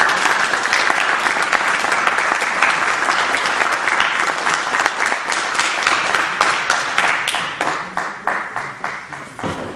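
Audience applauding, dense and steady at first, thinning to scattered claps over the last couple of seconds.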